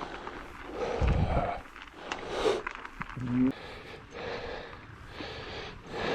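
A mountain biker's heavy breathing, hard breaths about once a second after exertion. A low rumble comes about a second in, and a brief low tone just past three seconds.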